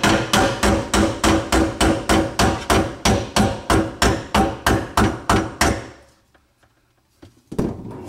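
A hammer strikes the lugs of a garbage disposal's metal mounting ring in a steady run of ringing blows, about three to four a second, to turn the ring and lock the disposal tight onto the sink flange. The hammering stops about six seconds in.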